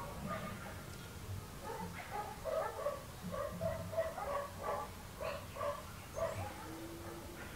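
An animal calling in the background: a quick series of about ten short, pitched calls.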